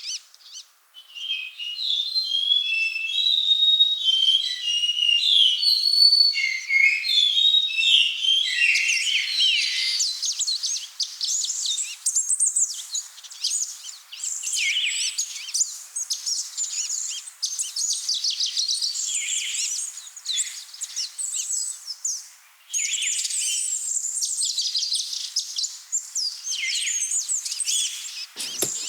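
Several small birds chirping and singing at once: short warbled notes for the first several seconds, then a dense run of rapid high chirps, with a brief lull about three-quarters of the way through.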